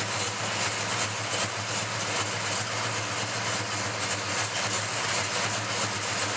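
1966 Dodge Dart GT's 360 V8, bored out to 408, idling steadily, running rough enough to shake the car.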